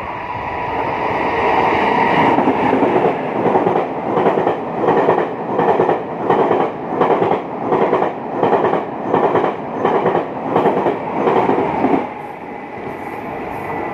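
Taiwan Railways Tze-Chiang express running through a station at speed without stopping. A rumble builds as it approaches, then its wheels clatter in a steady rhythm of nearly two beats a second, which cuts off suddenly near the end as the last car passes.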